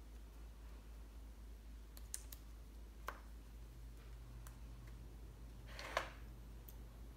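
Faint clicks and taps of a paintbrush against a watercolour palette while paint is mixed: a few scattered ticks, then a louder short knock about six seconds in, over a low steady hum.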